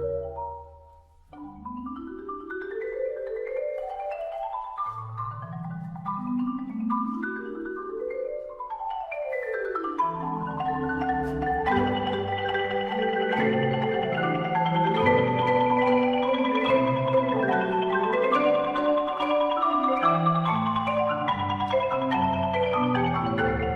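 Background music built from quick rising runs of struck, pitched notes, growing fuller and louder about ten seconds in.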